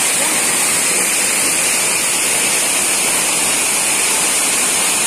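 Steady, loud rush of a waterfall pouring down a rock face, an even hiss of falling water with no break.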